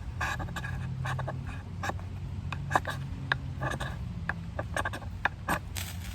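Short, irregular scrapes and clicks of fire-lighting work with a scandi-ground fixed-blade knife and a ferro rod, with a longer scraping hiss near the end, over a steady low hum.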